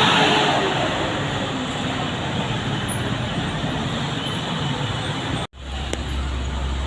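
Road noise of a heavy vehicle passing close by. About five and a half seconds in the sound cuts out abruptly, then returns as a steady low rumble with quieter traffic.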